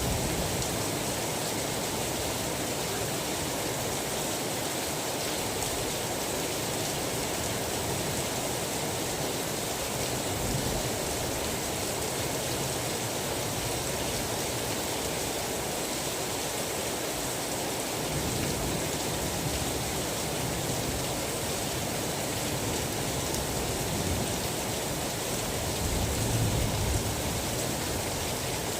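Steady, dense rain falling without a break, an even hiss. A soft low rumble swells briefly near the end.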